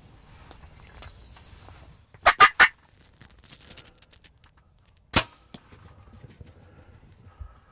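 A wild turkey calls in three loud, quick bursts. About three seconds later comes one sharp snap.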